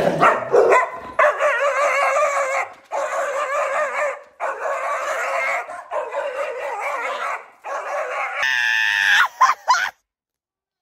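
A dog howling and whining in a string of long, wavering calls, each about a second and a half with short breaks between. Near the end comes a higher, shriller cry that cuts off suddenly.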